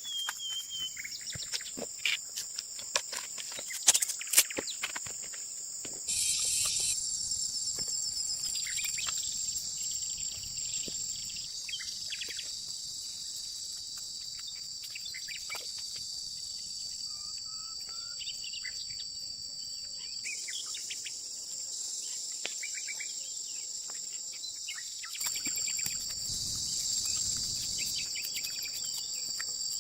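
Steady, high-pitched chorus of insects such as crickets, with a few sharp clicks and knocks in the first few seconds, the loudest about four seconds in.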